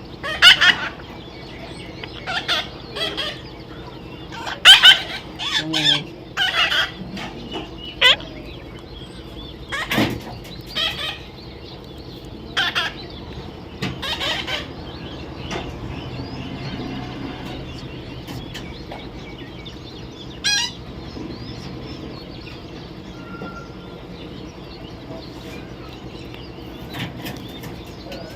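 Parrots squawking in short, harsh, high calls, a quick string of them in the first half and only a few later on.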